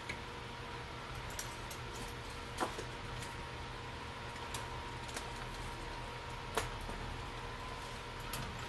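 Steady low electrical hum with a faint constant whine, broken by a few sharp clicks from small objects being handled, the loudest about two and a half and six and a half seconds in.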